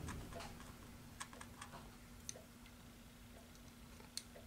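Faint, scattered light taps and clicks from hand painting with a small brush on canvas and a plastic palette, over a faint steady hum.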